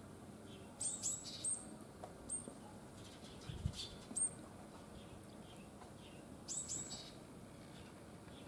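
Small tits giving short, very high-pitched call notes in quick clusters, about a second in and again near the end, with single notes between; a soft low thump midway.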